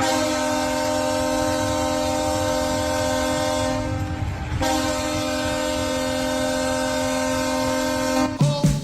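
Hockey goal horn, a deep multi-tone air horn like a train horn, sounding two long steady blasts of about four seconds each with a short break between them. Goal music starts just as the second blast ends.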